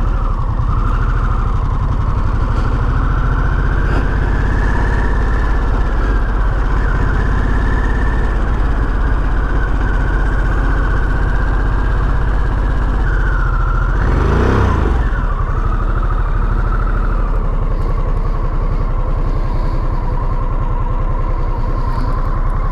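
Harley-Davidson Sportster S's liquid-cooled Revolution Max 1250T V-twin running steadily as the bike is ridden at low speed, briefly louder about fourteen seconds in.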